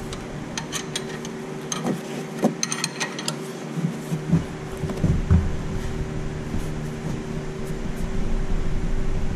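Steel wrenches clinking against each other and the bolt head as they are fitted onto a seized 19 mm caliper bracket bolt, a string of sharp clicks in the first three seconds, then a few dull knocks as the wrench is heaved on. A steady machine hum runs underneath.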